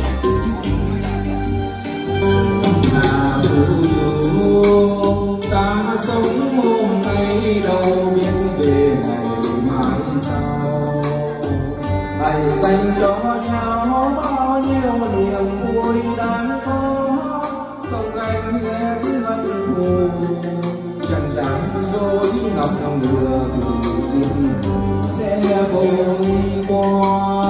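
Karaoke: a man singing a slow Vietnamese ballad into a microphone over a backing track with a steady bass, played loud through a pair of JBL 4012 loudspeakers and a subwoofer.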